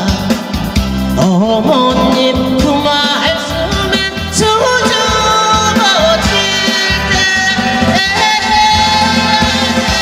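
Korean trot song with a band backing and a woman's voice singing the lead line with a wavering vibrato.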